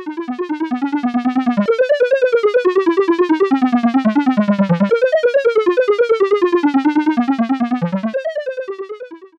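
Intro music on a synthesizer: a fast stream of short, evenly spaced notes, about eight a second, with the melody moving up and down. It fades in at the start and fades out near the end.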